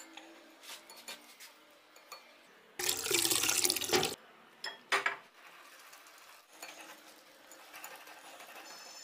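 Wire whisk clicking against a glass bowl of dry gram flour, then water poured in for just over a second about three seconds in. After that the whisk works through the wet batter, with a steady faint rustle and small ticks.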